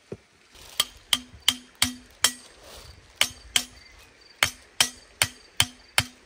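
Hammer driving tent pegs, struck in quick runs of about three blows a second with a couple of brief pauses, each blow leaving a short ring.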